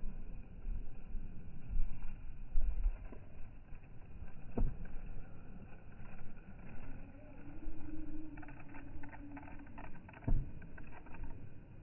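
Wind rumbling on the microphone, with two dull thumps about six seconds apart and a faint hum near the end.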